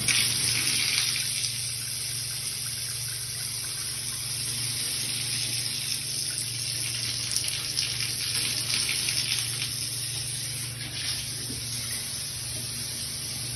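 Water running steadily, the even splashing rush of a tap or pipe flowing freely, with a steady low hum underneath.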